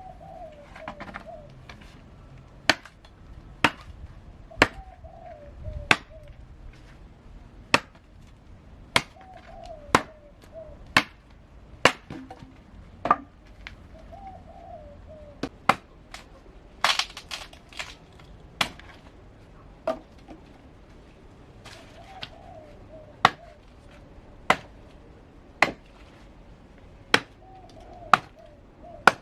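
Chopping: sharp strikes, roughly one a second with uneven gaps and a quick cluster a little past the middle. A bird repeats a short warbling call every few seconds between the strikes.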